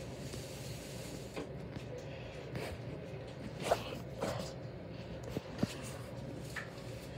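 Phone-handling noise: a few soft knocks and rubs as the phone is moved around in the hand, over a faint steady room hum.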